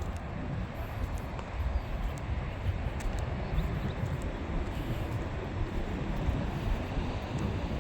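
Steady rumble of freeway traffic, a dense uneven noise heaviest in the low end.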